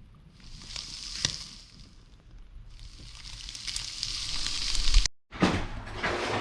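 Hot dog pieces and eggs sizzling in a frying pan, with an occasional click from the pan, growing louder until the sound cuts off abruptly about five seconds in. Sharp knocks follow.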